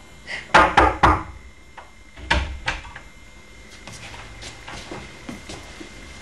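A girl crying in a few short, loud sobs in the first three seconds, then a few soft knocks as a room door is opened.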